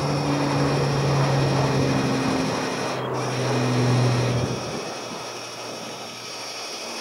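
A small motor running with a steady low hum, which drops away about two thirds of the way in.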